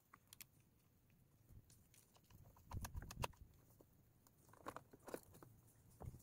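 Faint, scattered clicks and taps of hands and a screwdriver working at a motorcycle battery's terminal bolts and hold-down, in small clusters about three and five seconds in, otherwise near silence.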